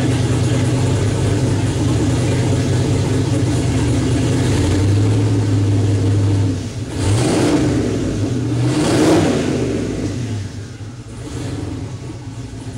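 Twin-turbo, forged 408 cubic-inch LS V8 idling on its first start-up, blipped twice past halfway with the revs rising and falling each time, then settling back to a quieter idle.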